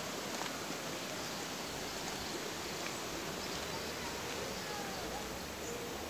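Steady outdoor ambience, an even hiss of background noise with a few faint, brief chirps.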